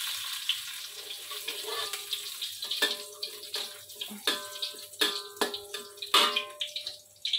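Chopped shallots and garlic frying in a hot steel wok, a steady sizzle. From about three seconds in, a metal spatula scrapes and knocks against the wok several times, each stroke leaving a short metallic ring.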